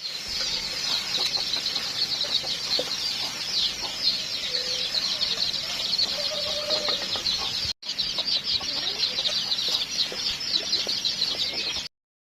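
Desi chickens calling: a dense, continuous chorus of rapid high-pitched cheeping, with a few short, lower calls near the middle. The sound drops out for a moment about eight seconds in and stops abruptly shortly before the end.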